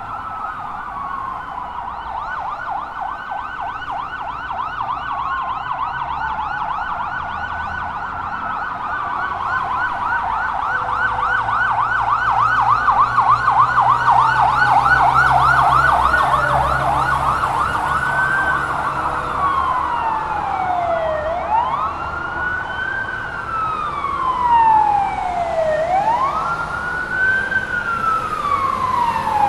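Fire truck sirens wailing in slow rising-and-falling sweeps, switching to a rapid yelp of several sweeps a second in the middle, then back to a deeper wail, over a low truck engine rumble. The sound grows louder toward the middle, as if the trucks are passing close.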